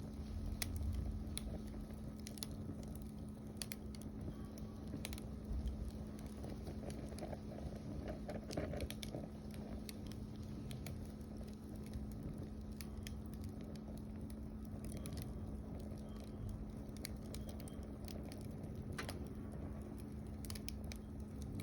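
Wood fire burning, with irregular crackles and pops over a low rumble and a faint steady hum.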